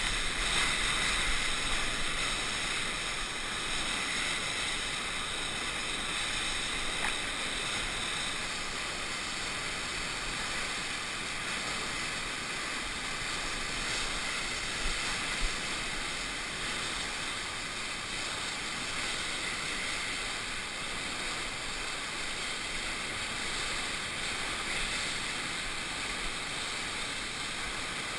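Steady rushing of whitewater from a river standing wave, heard close up from a camera on the surfboard.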